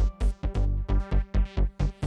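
Electronic background music with a fast, steady beat.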